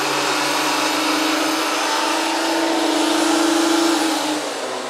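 Makita 2012NB portable planer-thicknesser running under load as a board edge feeds through its cutter head. The cutting sound ends about four seconds in, and the machine carries on running more quietly.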